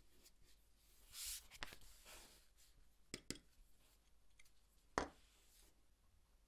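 Faint handwork sounds of a small pointed tool on leather and a cutting mat: a short scrape about a second in, then a few light taps and clicks, the sharpest about five seconds in.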